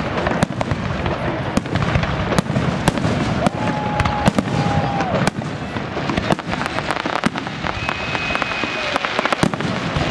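Fireworks display: aerial shells bursting one after another in a dense run of sharp bangs and crackles. Two short steady whistles are also heard, a lower one about four seconds in and a higher one near the end.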